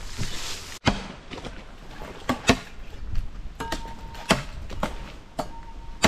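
A knife chopping into a green bamboo pole, about eight sharp, irregularly spaced knocks, as the hole is cut near the bottom of a bamboo cannon.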